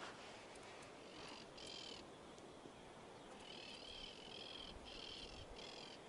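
Faint high chirping calls of a small animal, repeated in short pulses: a couple of chirps about a second and a half in, then a steady series from about three and a half seconds on, over a soft outdoor hiss.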